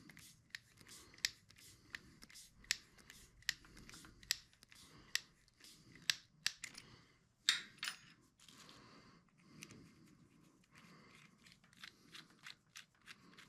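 A series of light clicks and taps, irregular at roughly one every half second to a second, with a louder scraping sound about seven and a half seconds in.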